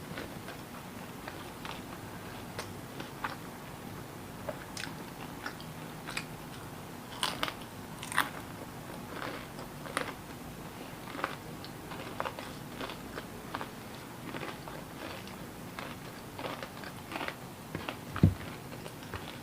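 A person chewing food close to the microphone, with scattered crisp crunches and small mouth clicks. There is a single dull thump near the end.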